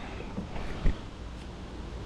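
Quiet handling noise with a dull thump about a second in.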